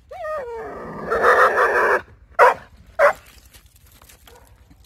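Irish setter whining at the sight of a snowshoe hare. The whine falls in pitch, then turns into a louder, rougher cry lasting about a second, followed by two sharp barks about half a second apart.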